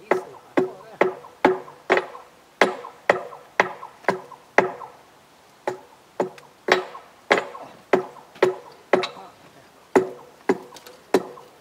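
Hand hammer striking the glowing thermite weld on a steel rail, about two blows a second, each with a short metallic ring from the rail. The blows pause for about two seconds near the middle, then carry on.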